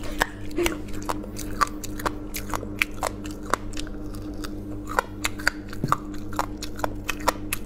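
Close-up crunchy chewing of fried silk moths: a string of irregular crisp cracks and crunches as they are bitten and chewed. A steady low hum runs underneath.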